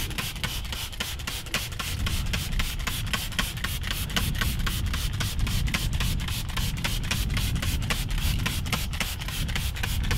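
Boat-cleaning liquid being sprayed from a spray bottle onto a fibreglass deck, as a rapid, even ticking about five times a second over a steady low rumble.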